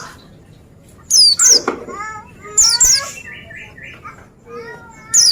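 A pleci (white-eye) singing. Three loud bursts of quick, high, falling whistled notes come about a second in, near the middle and at the very end, with softer lower twittering between them.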